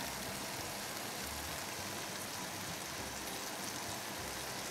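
Goose breasts sizzling in hot oil in a frying pan: a steady sizzle with fine crackles.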